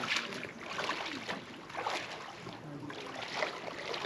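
Shallow water sloshing and splashing, with a soft splash every half second to a second.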